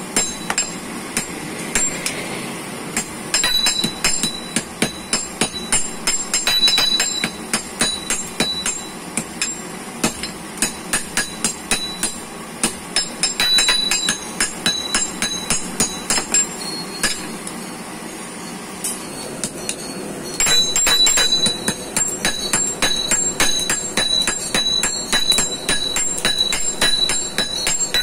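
Hand hammer and sledgehammer striking red-hot iron on an anvil in a quick, steady rhythm of blows, each strike followed by a short metallic ring. The blows ease off briefly near the start and again about two-thirds of the way through.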